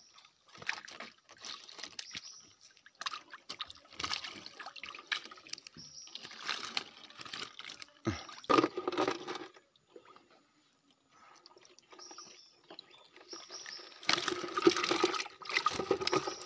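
Water splashing and running off a mesh fish trap as it is hauled out of the water, in irregular bursts, loudest near the end as the trap comes into the boat.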